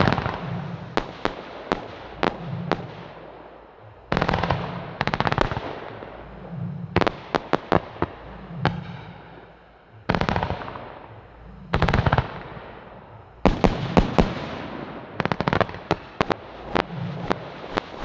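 Wolff Excentric F2 firework battery (cake) firing, shot after shot every one to two seconds, each launch followed by a cluster of sharp cracks.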